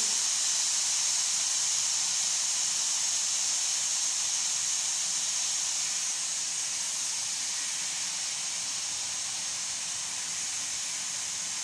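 Stovetop pressure cooker venting steam through its held-up weight valve: a steady, high hiss that slowly fades as the pressure inside drops after cooking, before the lid is opened.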